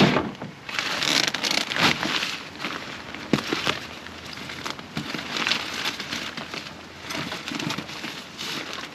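Rustling and crinkling of an inflatable tent and its carrying bag being handled, in irregular swishes with a few louder ones.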